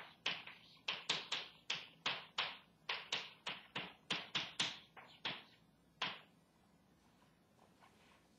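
Chalk striking a blackboard in quick strokes as words are written, about three taps a second, stopping about six seconds in.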